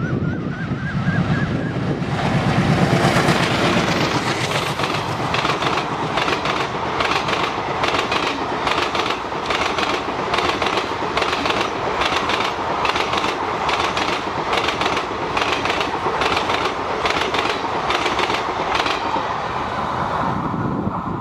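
Diesel locomotive-hauled passenger express passing at speed: the locomotive's engine rumble for the first few seconds, then the coaches' wheels clattering over rail joints in a steady rhythm of about two clacks a second, easing off near the end.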